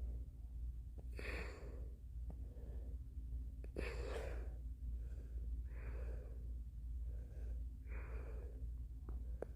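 A person breathing out heavily close to the microphone: four long, audible breaths about two seconds apart, over a steady low hum.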